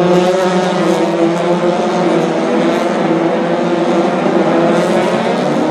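Several open-wheel race car engines running hard together as a pack of cars passes through a corner, their overlapping engine notes held fairly steady.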